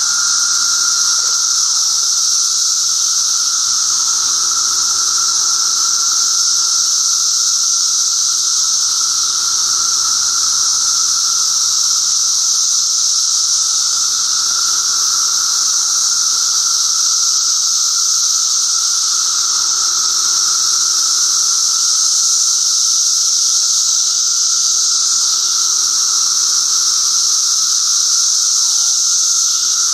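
Dense chorus of Brood XIII seventeen-year periodical cicadas: a loud, steady, high-pitched buzzing drone with a second, lower whine beneath it.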